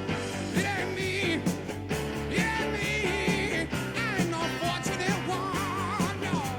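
Rock music with a singing voice, a steady bass line and a regular drum beat.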